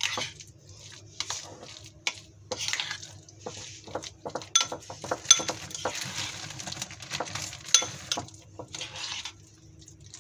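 Metal spoon stirring mashed boiled eggs and mayonnaise in a ceramic bowl: irregular clinks and scrapes of metal on the bowl, mixed with soft wet stirring of the mixture.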